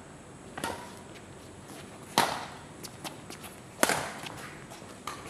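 Badminton rally: rackets striking the shuttlecock in four sharp hits roughly one and a half seconds apart, with lighter taps between them.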